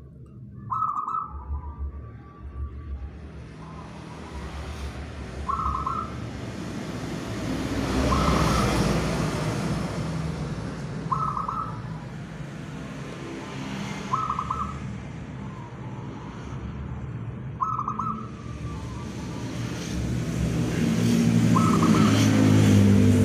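Zebra dove (perkutut) cooing: short trilled notes repeated about every three seconds. A low rumble runs underneath, swelling twice.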